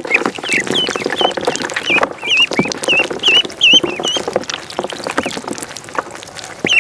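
Ducklings peeping: a quick run of short, high chirps over the first four seconds or so, then only the odd one, over frequent small splashes of pond water.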